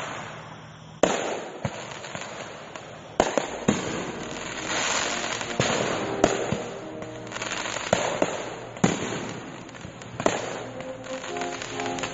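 Fireworks shells bursting in a series of sharp bangs, roughly one every one to two seconds, each trailed by crackling.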